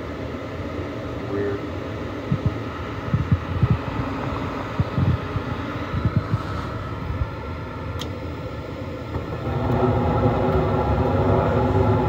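Newly replaced inducer motor on a 2008 Carrier Performance two-stage furnace running with a steady hum, with a few low thumps in the first half. A sharp click comes about eight seconds in, and soon after the sound grows louder with a steadier, pitched hum as the furnace's burners light.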